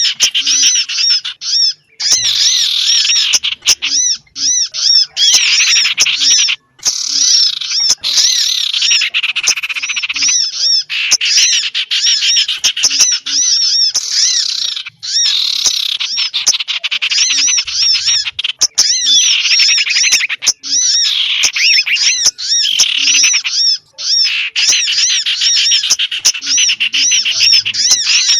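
Bird lure call for small birds: dense, rapid high-pitched chirping and twittering of many small birds, made of quickly repeated arched notes, running on with brief breaks every few seconds.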